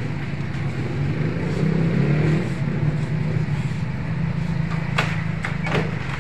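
A steady low motor hum, swelling slightly a couple of seconds in. Near the end come a few sharp smacks as sparring kicks land on taekwondo chest protectors.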